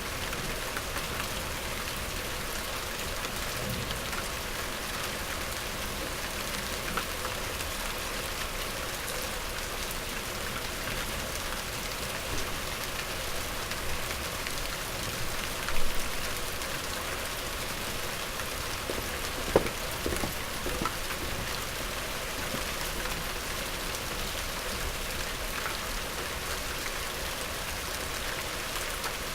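Medium rain falling steadily, an even hiss of many drops on a surface, with a few louder, closer drops striking about halfway through.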